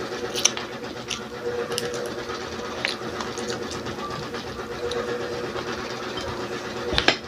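A steady machine hum with scattered short clicks and taps over it.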